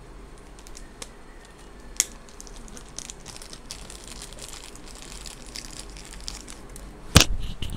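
Handling of a Lightning-to-3.5 mm adapter and a Boya microphone cable while plugging them in: faint rustling and small clicks, a sharp click about two seconds in, and a loud knock on the microphone near the end.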